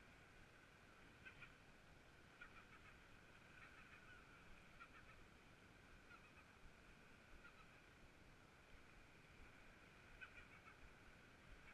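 Near silence: a faint, steady high hum with a few faint ticks.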